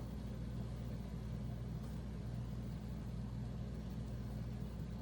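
A steady low machine hum with a faint even hiss above it, unchanging throughout.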